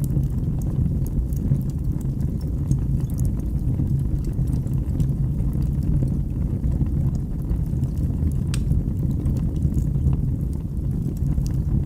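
Wood fire burning in a fireplace: a steady low rumble of the flames with scattered small crackles and pops, one sharper pop a little past the middle.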